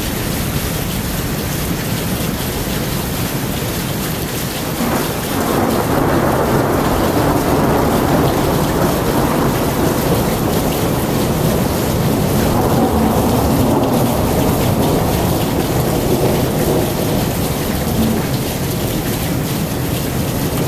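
Rain falling steadily, with thunder rolling in about five seconds in and rumbling on for many seconds.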